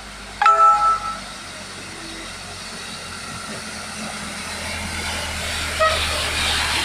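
Pickup truck driving through flood water: its engine rumble builds as it approaches, and the splashing wash of water swells near the end as it passes close. About half a second in, a short, loud ringing tone sounds, with a fainter brief one near the end.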